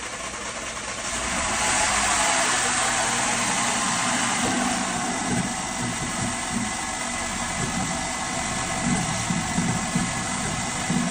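Freshly rebuilt Audi EA888 2.0-litre turbo four-cylinder engine running on its first start after the rebuild, growing louder about a second in and easing to a steady idle about five seconds in.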